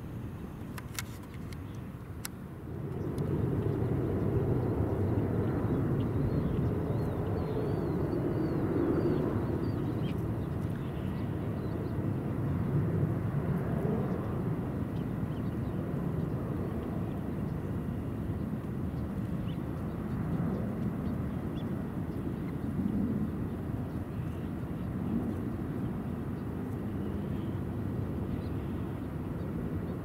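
Low engine rumble from a distant motor, swelling in about three seconds in and carrying on steadily, with a few faint high bird chirps over it.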